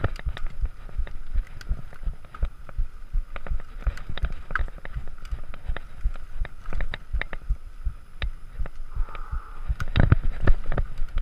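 A bike jolting over rough trail ground: a dense run of irregular knocks and rattles over a faint steady hum.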